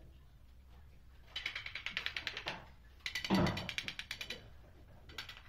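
Steel trowel scraped along the top edge of a ceramic wall tile and its metal edge trim, making two runs of rapid chattering clicks with a heavier knock between them.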